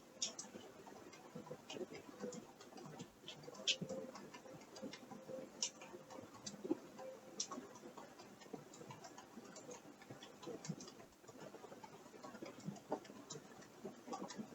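Scattered, irregular faint clicks and ticks, like creaking, coming at uneven intervals, over a faint steady hum.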